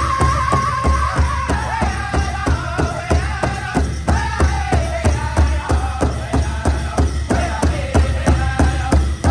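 Powwow drum group playing a men's chicken dance song: several men strike one large drum in unison at a steady beat of about four strokes a second, singing together in high voices with phrases that start high and step down in pitch.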